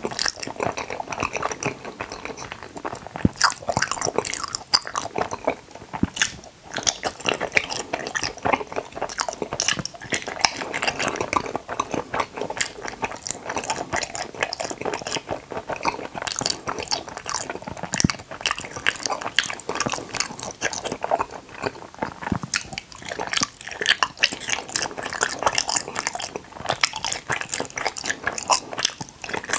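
Close-miked chewing and biting of Kororo jelly, juice-filled gummy candies, with many quick, irregular mouth clicks and crackles.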